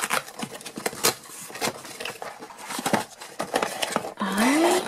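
Hands handling a cardboard toy box, with rustling, tapping and clicks as the plastic toy race car is worked out of its packaging. A short rising tone sounds near the end.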